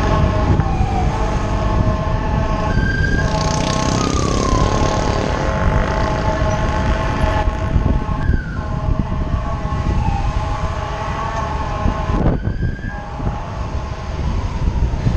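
A vehicle on the move: several steady whining pitches over a dense rumble, briefly breaking and dipping in pitch a few times.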